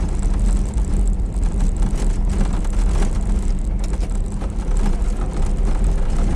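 Cabin sound of an IZh-2717 van on the move: steady engine and road noise with a strong low drone, through which the body keeps up irregular small clicks and rattles, the creaking and rattling of the van's cargo box.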